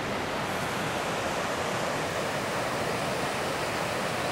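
Steady rushing of a fast river running over stony riffles, an even noise with no breaks.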